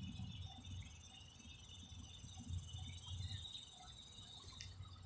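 Steady, high-pitched insect chorus, with a faint low rumble underneath.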